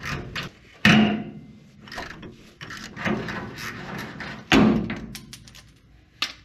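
Ratchet on a long extension working the rusted nut of a truck bed-mounting bolt, with small clicks and two loud metal knocks, about a second in and about four and a half seconds in.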